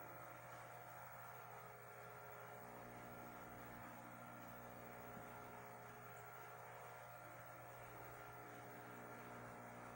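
Faint, steady electrical hum of aquarium equipment, such as a filter motor, running unchanged throughout.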